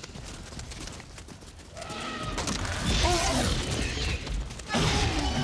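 Film dinosaur sound effects: a fleeing herd of Gallimimus with rapid pattering footfalls, then a loud crash as a Tyrannosaurus rex lunges and seizes one. Shrill gliding shrieks follow from the caught Gallimimus, and near the end a deep growl from the T. rex begins.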